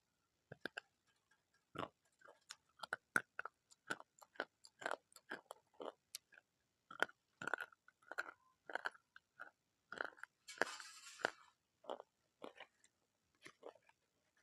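Crunchy food being bitten and chewed close to the microphone: an irregular run of sharp, crisp crunches, with a short hissing rustle about ten and a half seconds in.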